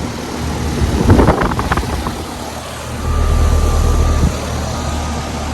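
Several Carrier Comfort Series heat pump outdoor units running, a steady low fan and compressor hum. A brief crackly rustle comes about a second in, and a louder low rumble from about three to four seconds in.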